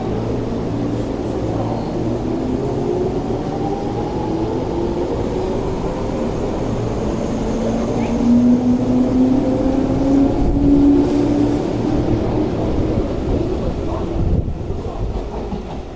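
Tobu commuter electric train departing. Its motors whine, rising slowly in pitch as the train picks up speed, over the rumble of the wheels. It is loudest as the cars run past and falls away near the end as the rear of the train draws off.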